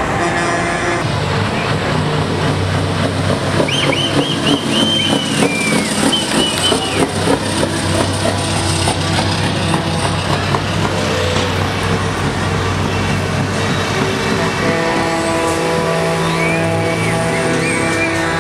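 Semi-truck tractor units driving slowly past one after another, their diesel engines running. A steady chord of held tones joins in over the last few seconds.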